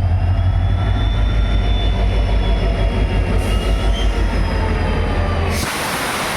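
WDP4B diesel-electric locomotive's 16-cylinder two-stroke EMD engine humming: a steady deep drone with several whining tones above it that slowly rise and then fall. Near the end a loud hiss lasting about a second covers it while the drone drops away.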